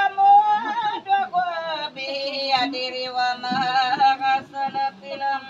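A voice singing or chanting in long, drawn-out notes that waver and bend in pitch, with short breaks between phrases.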